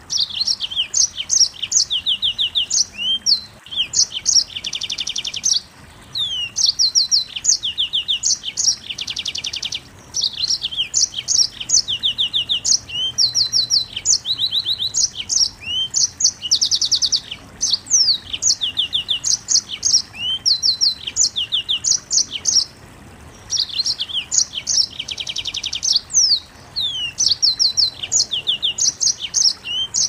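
Yellow-fronted canary (Mozambique singer) singing a long, rapid, high-pitched song of fast trills and quick chirps, packed tightly together with only a few short breaks. This is the dense, rapid-fire delivery that Indonesian bird keepers call 'nembak rapat'.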